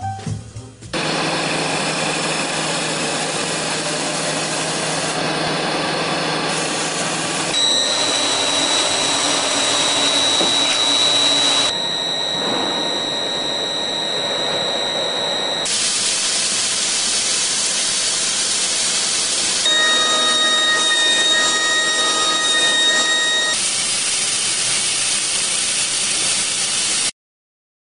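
CNC rotary transfer deburring machine running: a loud, steady, noisy machining sound with faint whining tones. It changes abruptly every few seconds, with a high whine through the middle, and cuts off suddenly near the end.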